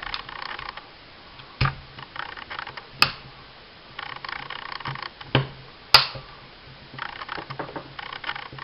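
Light metallic rattling and ticking of a 9mm baby 1911 pistol's parts being handled as the recoil spring retainer is pressed down, with four sharper clicks spread through.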